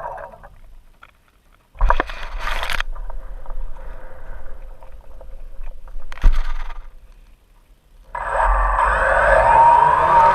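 Quadcopter drone's propellers buzzing, with the sound cutting in and out: a short burst about two seconds in, fainter noise through the middle with a sharp click, then the buzz returning loud near the end.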